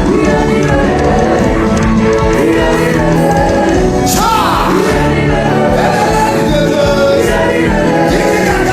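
Loud gospel worship music: a singing voice over held notes and a steady bass.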